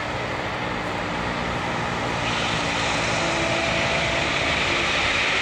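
Airbus A350-900's twin Rolls-Royce Trent XWB turbofans running as the jet lines up for takeoff, growing louder with a stronger hiss from about two seconds in as thrust comes up.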